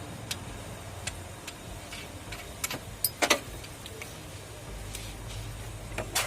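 Scattered sharp metallic clicks and knocks of hand tools working on a car alternator, the loudest a close pair a little past three seconds in, over a steady low hum.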